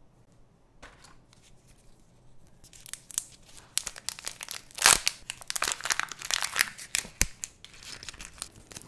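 Foil wrapper of a Kinder Joy egg being torn and crinkled off by hand, a dense run of crackling that starts about three seconds in and is loudest around the middle.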